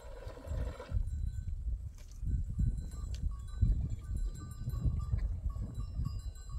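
Water pouring from a jug into a plastic basin stops about a second in. After that, faint clinking of livestock bells sounds over a low rumble of wind on the microphone.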